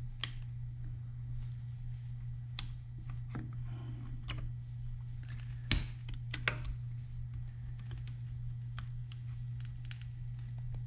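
Irregular small metallic clicks and taps of fingers and a small tool fitting the wrist-pin retaining clip into a chainsaw piston, with one sharper click a little before the middle, over a steady low hum.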